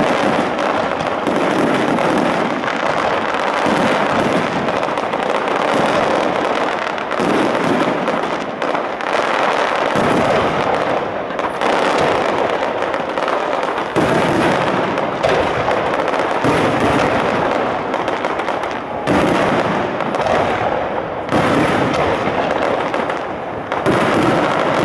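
Aerial fireworks display: a dense, continuous barrage of bursts and crackle, with a fresh, louder salvo setting in every few seconds.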